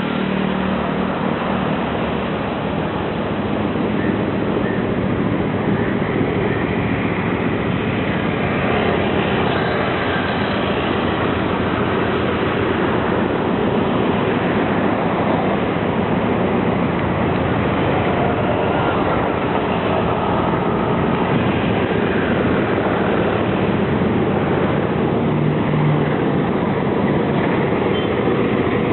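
Sri Lanka Railways train running along the track, a steady, unbroken noise of wheels and carriages.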